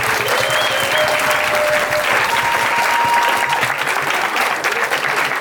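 Audience applauding steadily after a dance performance, with a few long held whoops over the clapping.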